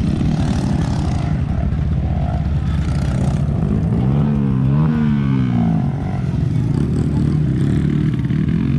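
Off-road motorcycle engines running on a dirt race track. About four seconds in, one engine revs up and down several times.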